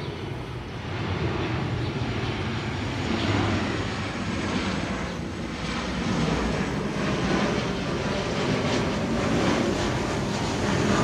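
Boeing 737-800 airliner's CFM56-7B turbofan engines on final approach, a steady jet rumble overhead that grows a little louder after about a second.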